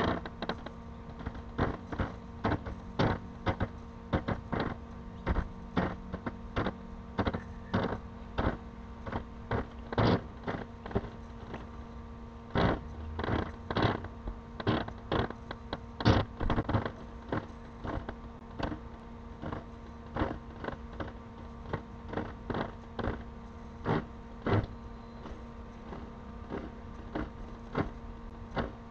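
Homemade sewer camera rig being pushed along a sewer pipe: irregular clicks and knocks, about one or two a second, some in quick clusters, over a steady hum.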